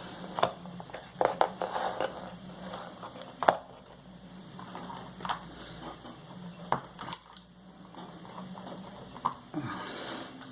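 Scattered clicks and knocks of small hard objects being handled and set down, about a dozen irregular taps with the sharpest about three and a half seconds in, over a faint steady low hum.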